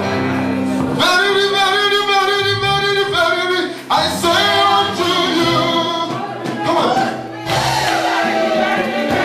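Gospel music: voices singing together over an accompaniment of steady held low notes.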